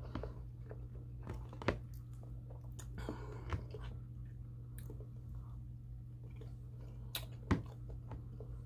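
A person chewing a mouthful of food close to the microphone, with small wet mouth clicks and two sharper clicks, one about a second and a half in and one near the end, over a steady low hum.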